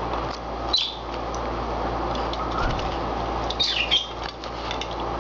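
Rosy-faced lovebird bathing in a shallow dish, fluttering its wings and splashing the water. Short high chirps come about a second in and again near four seconds.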